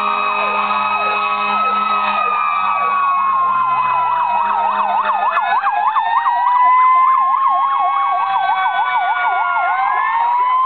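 Sirens on several emergency vehicles (fire apparatus and ambulances) sounding at once. Slow wails rise and fall over one another, with fast yelping sirens layered on top, strongest from about halfway through.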